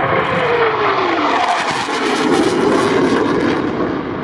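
A Eurofighter Typhoon FGR4's twin Eurojet EJ200 turbofan engines running loud as the jet passes low overhead and climbs away. A whine slides down in pitch over the first second and a half as the aircraft goes by.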